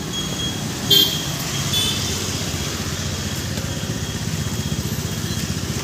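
Steady drone of road traffic and engines, with a brief higher-pitched sound about a second in.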